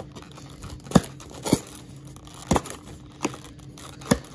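Hands working at a cardboard trading-card box and the foil-wrapped packs inside it, struggling to get it open: crinkling wrappers and cardboard with about six sharp snaps at irregular intervals.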